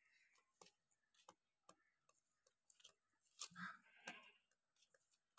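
Faint, irregular crunching clicks of a goat chewing green fodder, louder for a moment about three and a half seconds in.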